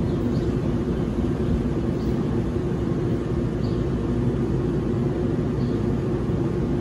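Steady hum and blower drone of a New Jersey Transit Arrow III electric multiple-unit train standing at the platform, several tones held level over a low rumble.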